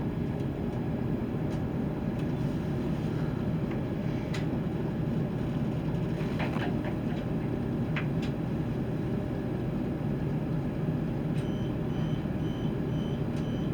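Inside a ScotRail Class 170 Turbostar diesel multiple unit on the move: a steady rumble of the underfloor diesel and wheels on rail, with a few sharp clicks.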